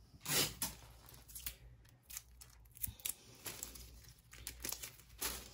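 Wrapping materials (paper and plastic) being handled: a louder rustle right at the start, then soft crinkling and a few light clicks.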